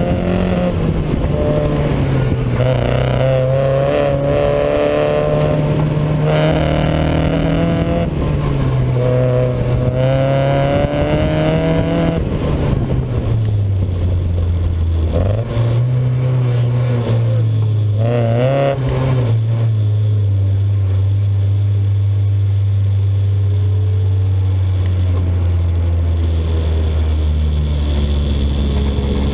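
1994 Mazda Miata's 1.8-litre four-cylinder engine under hard driving, its note rising and falling again and again, then settling into a steady lower drone for about the last ten seconds. The engine has a misfire that the owner puts down to the fuel rail.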